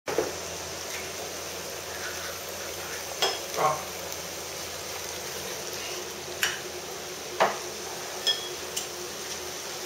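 Meat and vegetables sizzling in a shallow pan on a portable gas stove, a steady hiss, with several sharp clinks of chopsticks and tableware, the loudest a little after three seconds and twice more a few seconds later.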